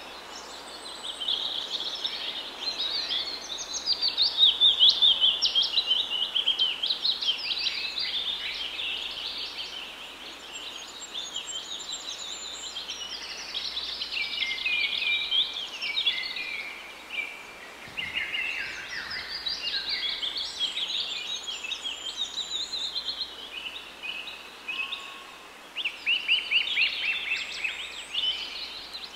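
Several small birds chirping and singing at once in fast, chattering phrases. It is loudest about four to six seconds in and again near the end.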